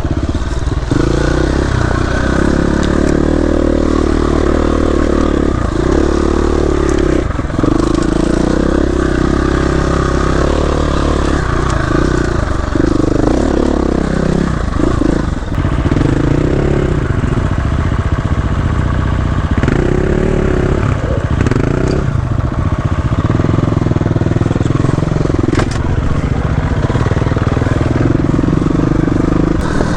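KTM 350 EXC-F four-stroke single-cylinder dirt bike engine running under load on single track, its note rising and falling over and over as the throttle is worked.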